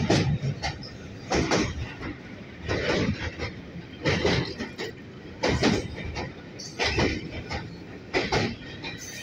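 Train wheels clattering over rail joints on a steel girder bridge, a loud burst of clatter about every second and a half over a steady rolling rumble.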